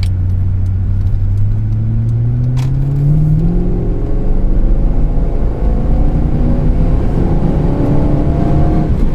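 Lexus coupe's engine pulling away under acceleration, its pitch rising steadily as it gathers speed. The A340E automatic transmission is holding its gears and shifting properly now that the solenoid wiring is repaired.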